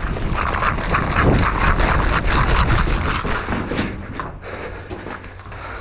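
Quick footsteps of someone running on a dirt and gravel track: a fast patter of crunching steps that eases off after about four seconds.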